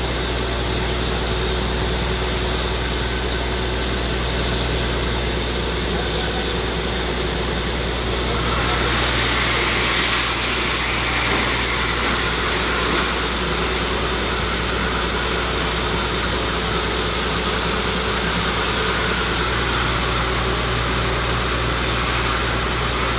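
Borewell drilling rig's engine running steadily, with a deep hum and a hiss above it, swelling a little about ten seconds in.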